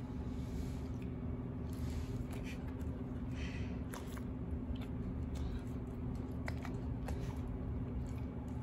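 Corgi crunching and chewing dry kibble: irregular crisp crunches and clicks, over a steady low hum.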